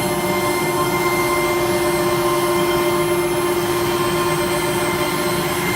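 Automatic-feeding CNC router running: a steady whine with several constant tones over an even hiss.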